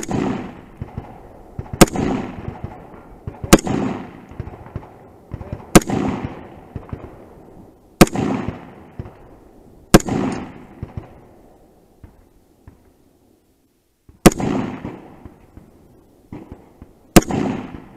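AR-15-style carbine fired in slow, aimed single shots, about eight in all, roughly two seconds apart with one longer pause midway. Each sharp crack is followed by a rolling echo of about a second.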